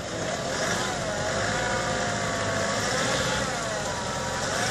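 Toyota Hilux pickup engine revving up and down under load as the truck works its way through deep mud ruts, the pitch rising and falling several times.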